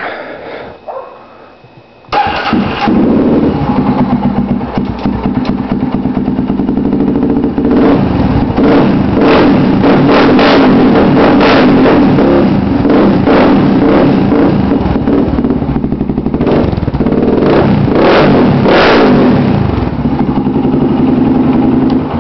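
Polaris Predator 500 ATV's single-cylinder four-stroke engine through an HMF aftermarket exhaust, starting about two seconds in and idling. Through the middle it is revved repeatedly in rising and falling blips, then settles back to a steady idle near the end.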